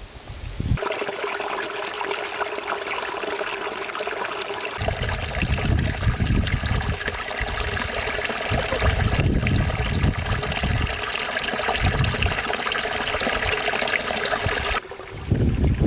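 Running water trickling steadily, starting abruptly about a second in and cutting off about a second before the end, with irregular low rumbles underneath in the second half.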